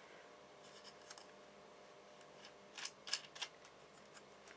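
Short scrapes and clicks of small hardware being worked by hand, most likely a threaded DC socket nut on a 3D-printed panel. They come in two brief clusters, about a second in and a louder one around three seconds in.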